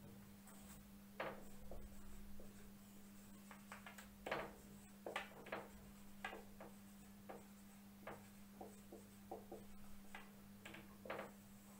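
Whiteboard marker writing on a whiteboard: a string of short, faint strokes, over a steady low hum.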